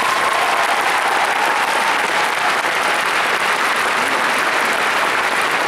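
A large audience applauding steadily in an arena, with a single held high note over the clapping in the first couple of seconds.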